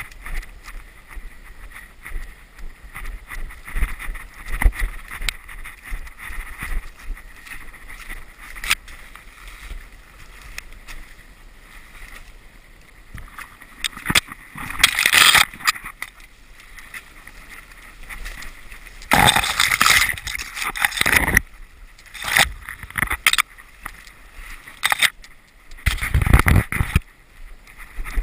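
English setter running through forest undergrowth with the camera on it: constant rustling and brushing of grass and twigs, with branches scraping across the camera in three loud bursts, about halfway, around two-thirds in, and near the end.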